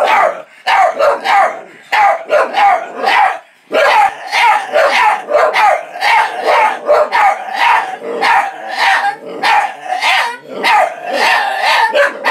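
Two dogs barking back and forth at each other in a near-continuous run of short, wavering calls.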